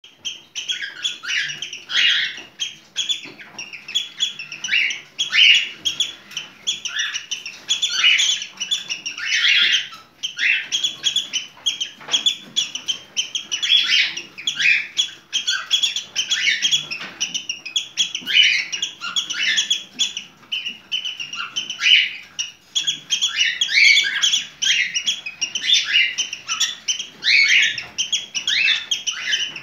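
Cockatiel chirping in a rapid, unbroken run of short gliding calls, several a second: the calling of a cockatiel in breeding condition (in heat).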